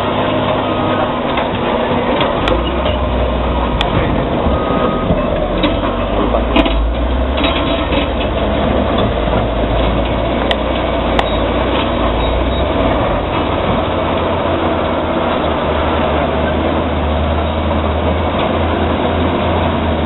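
Caterpillar D7G bulldozer's diesel engine running under load while it rips through rock, a steady drone whose low pitch shifts a few times, with several sharp knocks.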